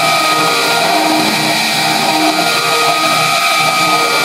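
CNC milling machine running steadily while milling a wooden test blank for a model-engine crankshaft: a constant spindle whine with a high fixed tone, and lower tones that come and go as the axes move.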